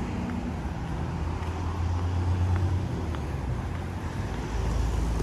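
Steady low outdoor rumble: a breeze buffeting the phone's microphone, mixed with road traffic.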